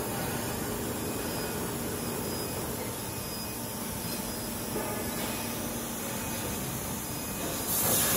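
Steady running noise of a metal plate rolling line's powered roller conveyor carrying a galvanized steel sheet, a mix of rumble and hiss. A short sharp hiss comes near the end.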